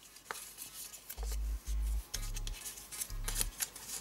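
Four short, low bass notes of background music, the loudest sound here. Faint rustles and ticks of a small paper card being handled run under them.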